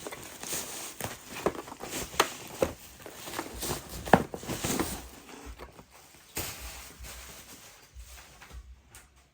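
Plastic wrapping crinkling and rustling, with sharp clicks and taps, as a sealed card-product box is unwrapped and handled. The handling thins out and gets quieter over the last few seconds.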